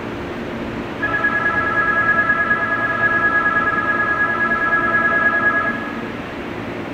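Electronic station departure bell ringing one steady, slightly warbling tone for about five seconds, starting about a second in, over a steady low hum.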